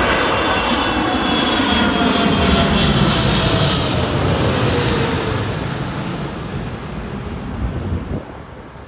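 Boeing 777-300 twin-jet on final approach passing low overhead: loud jet engine noise with whining tones that slide down in pitch as it goes over, then fading away as it moves off.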